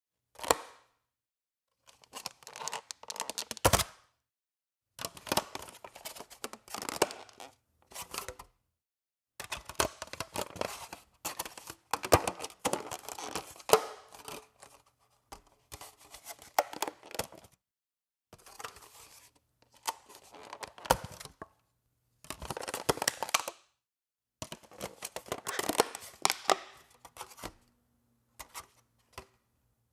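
Plastic food container box being opened and closed repeatedly: the lid snapping and clicking against the box in about a dozen short bursts of rapid clicks, each a second or two long, with brief pauses between.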